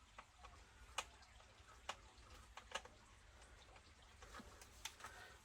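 Near silence with a few faint, irregular light clicks: small tools and parts being handled at a workbench.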